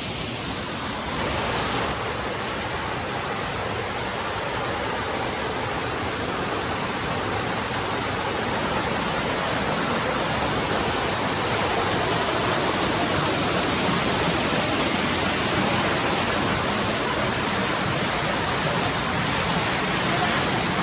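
Waterfall, a steady rush of falling water, a little louder in the second half.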